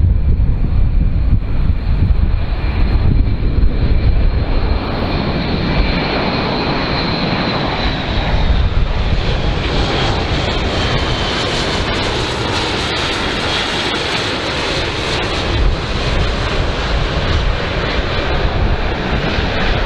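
Airbus A400M's four turboprop engines with their eight-bladed propellers, running as the transport flies low past on approach with landing gear down. It is a steady roar with a faint whine, growing brighter as the aircraft comes nearest around the middle, over wind rumble on the microphone.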